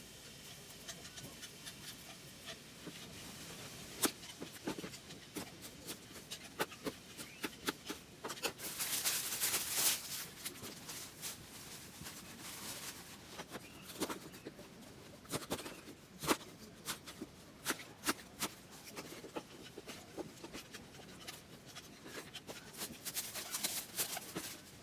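Camp tableware and cooking utensils being handled: scattered light clicks and taps, with a short stretch of hissing about nine seconds in.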